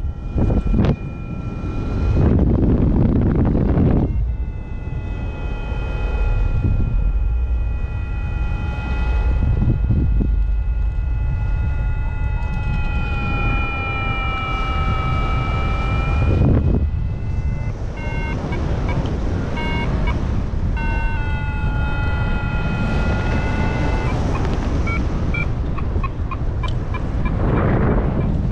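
XC Tracer Maxx paragliding variometer sounding a long steady tone that sags slightly in pitch, then switching about two thirds of the way through to rapid short beeps of changing pitch. Wind rushes on the microphone underneath. A steady tone is typical of a vario reporting sinking air, and beeps of rising air.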